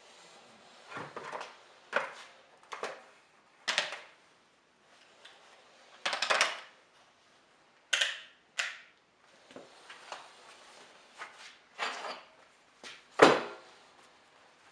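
Irregular clattering and scraping of hard objects being handled: about a dozen short knocks and scrapes with pauses between them, the loudest near the end.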